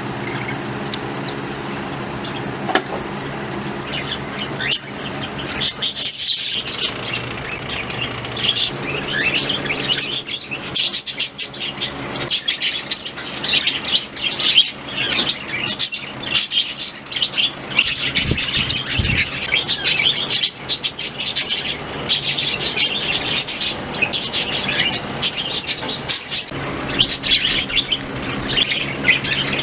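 Budgies chattering in rapid, overlapping chirps that grow busier about five seconds in. A steady low hum sits under them at the start and again near the end.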